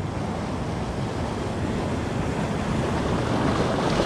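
Sea surf washing in, a steady rush of noise that swells a little toward the end, with wind buffeting the microphone.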